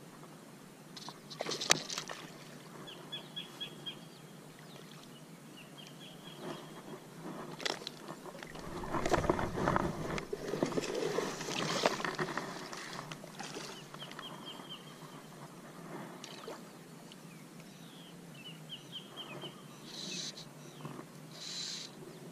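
Rustling and knocking of gear handled close to the microphone, loudest in a stretch of several seconds near the middle as a plastic seat pad is moved on the grass. Short high chirping trills come every few seconds, along with scattered clicks.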